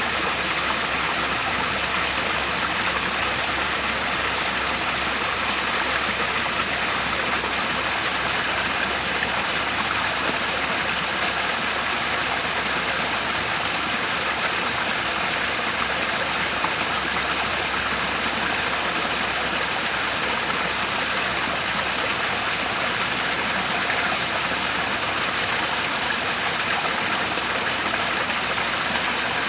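Waterfall: falling water rushing steadily without let-up.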